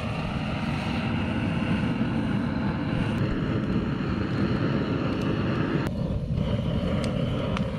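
A handheld gas torch on a canister burns with a steady rush of flame, starting abruptly. It is held against stacked firewood to light a wood fire.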